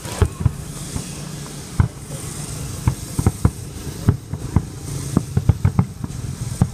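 Fireworks bursting: a run of irregular sharp bangs, coming faster and closer together toward the end, over a steady low background rumble.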